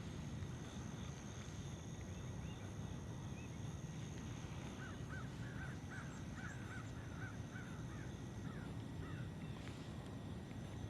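Faint outdoor ambience with distant birds calling: a run of about a dozen short calls in quick succession in the middle, over a steady low rumble.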